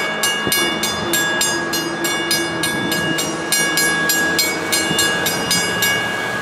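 Railroad crossing bell ringing about three to four strikes a second while the gates rise, stopping just before the end once the gates are up. Beneath it runs the rumble of a commuter train that has just cleared the crossing.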